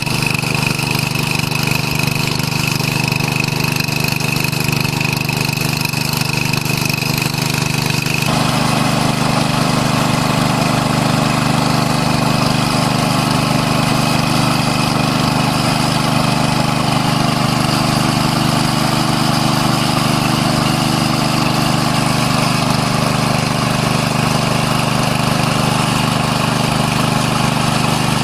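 A small engine running steadily, its sound changing abruptly about eight seconds in and then holding steady again.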